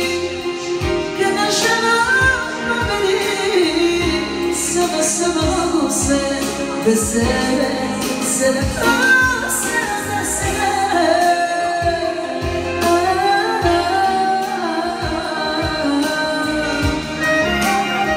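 A woman singing live into a handheld microphone, her voice amplified over a musical accompaniment with a steady beat.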